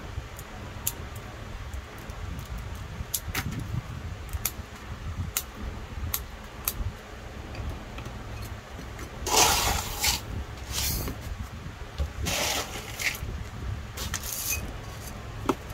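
Coarse gravel poured from a plastic soil scoop into a small ceramic pot in four short pours, the first and loudest about nine seconds in, with small clicks and taps of pot and tools before them. A low steady hum runs underneath.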